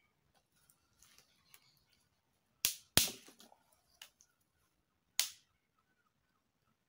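Sticks snapped by hand: faint rustling, then four sharp cracks between about two and a half and five seconds in, the loudest about three seconds in.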